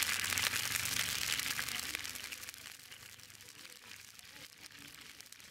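Hot oil sizzling and crackling as it froths in a kadai, loud at first and dying down after about two seconds to a faint crackle.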